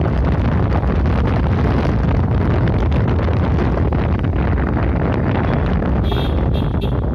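Steady wind rush buffeting the microphone of a moving motorcycle, with the bike's engine running underneath. A few short high chirps come near the end.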